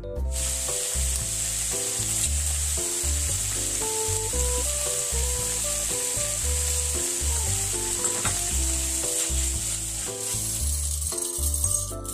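Spicy meat and vegetable stir-fry sizzling steadily in a stainless steel frying pan as it is turned with a wooden spatula, with light background music.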